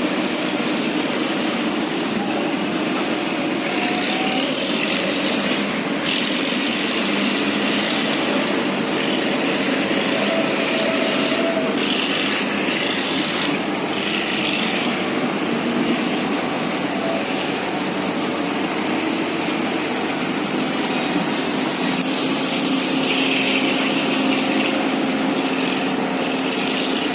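Heavy diesel machinery running steadily, most likely the Liebherr mobile crane's engine under load during a lift, with brief higher hissing patches now and then.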